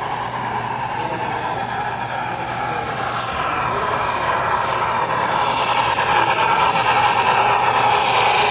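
HO scale model of a Union Pacific Challenger steam locomotive pulling yellow passenger cars, running past on the layout track: a steady rushing rumble of wheels and motor that grows louder about five seconds in as the train comes close.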